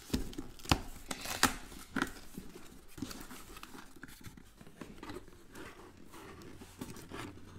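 Cardboard box being handled and opened: a few sharp knocks in the first two seconds as it is flipped and set against the table, then quieter scraping and rustling of cardboard.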